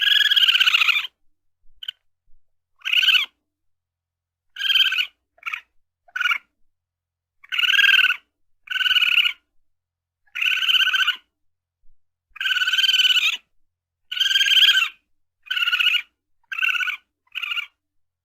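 Raccoon calling in a series of about a dozen short, high, quavering cries, each lasting under a second, separated by brief pauses.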